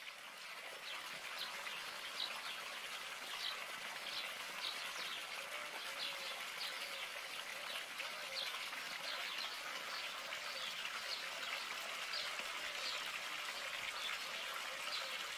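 Steady rush of flowing water, with short high bird chirps coming every second or so.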